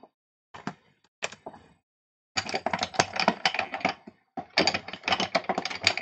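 Clicking and clattering of small plastic stamping supplies being handled, as a Memento ink pad is set down and its plastic case opened. A few single clicks at first, then two runs of dense, rapid clatter from about two seconds in.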